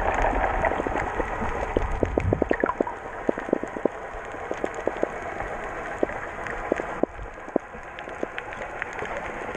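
Underwater sound on a coral reef: scattered sharp clicks and crackles over a steady hiss, heard through a camera housing. A low rumble fades away over the first few seconds.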